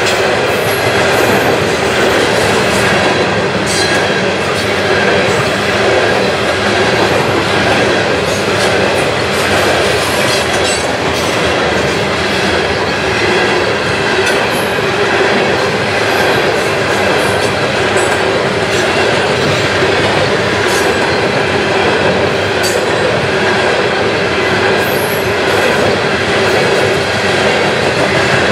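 Loaded CSX coal hopper cars rolling past close by: a steady, loud noise of steel wheels on the rails, with scattered sharp clicks.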